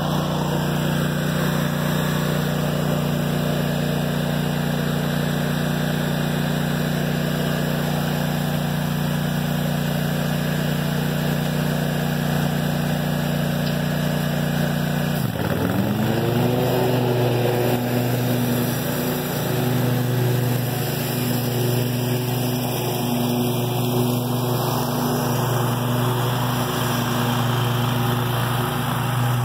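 Scag Tiger Cat II zero-turn mower's engine running steadily; about halfway through, its pitch dips sharply and then climbs back up to a new steady speed.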